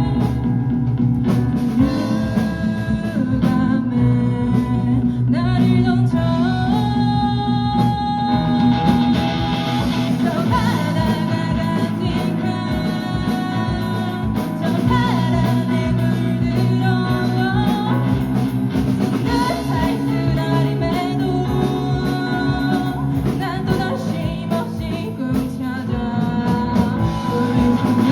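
A live rock band plays a song with a singer over electric guitar, piano, bass guitar and drum kit.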